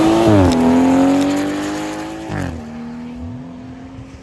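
BMW 1 Series hatchback accelerating hard past. Its engine revs climb and drop with an upshift about half a second in, climb again and drop with a second upshift about two seconds in, then hold steady and fade as the car pulls away.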